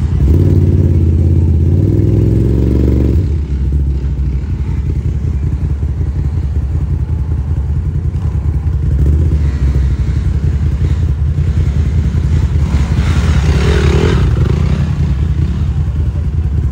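Off-road vehicle engines: a Polaris RZR 1000 side-by-side revving under load for the first three seconds or so, then quad ATV engines running steadily on a dirt trail.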